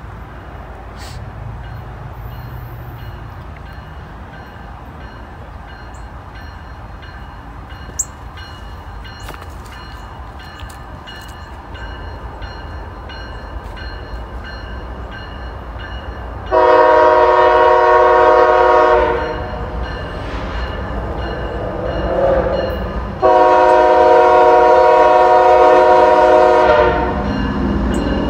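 Air horn of a CSX freight locomotive approaching at the head of a mixed manifest, sounding two long blasts, each a chord of several notes, in the second half. Before the horn, the low rumble of the approaching train grows slowly louder.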